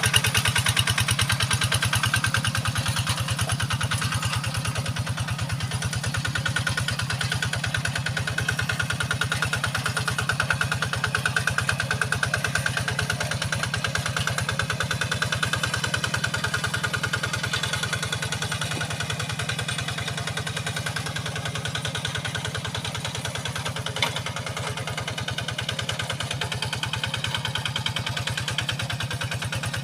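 Kubota RD85 single-cylinder diesel engine on a hand tractor, running steadily with a rapid, even chug. A single sharp tick comes about three-quarters of the way through.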